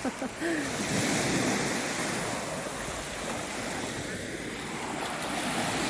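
Sea waves washing onto a beach: a steady rush of surf that swells about a second in and then holds.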